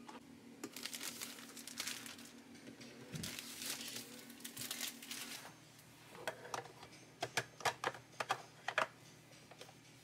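Cardboard packaging and a paper-board sleeve of coffee pods rustling and scraping as they are handled, then a quick run of about six sharp plastic clicks as the drip tray of a Nespresso Essenza Mini is fitted onto the machine.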